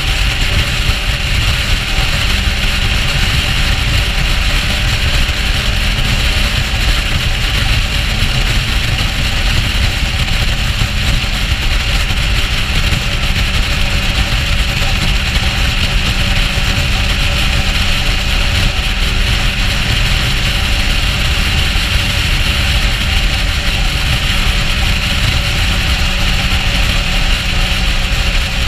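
Motorcycle engine running steadily at cruising speed, under a heavy, constant rush of wind on the microphone.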